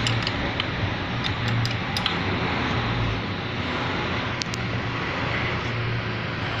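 Steady background traffic noise with a low hum, and a few light metallic clicks of a 13 mm wrench being worked on a motorcycle bolt.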